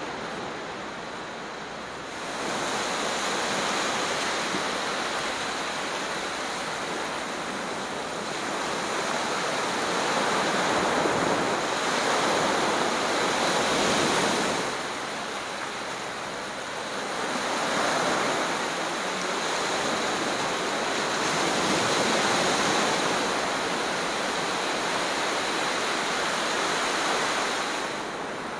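Sea surf breaking on a sandy beach: a continuous rushing wash that swells and ebbs every few seconds as the waves come in.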